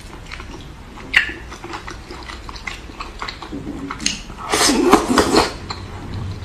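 Close-miked eating sounds: chewing and small mouth clicks, with a sharp click about a second in and a louder, noisier stretch around five seconds in.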